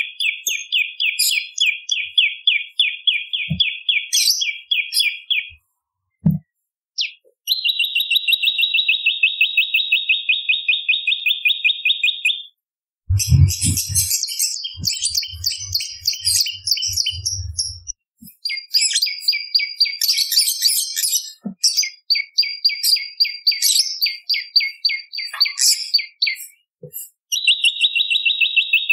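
Prenjak lumut calling in long, fast trills of evenly repeated high notes, each run lasting several seconds with short breaks between. A scratchier chatter and some low thumps come in around the middle.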